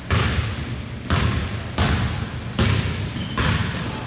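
Basketball dribbled on a gym floor: five bounces a little under a second apart, in a large hall, with a brief high squeak near the end.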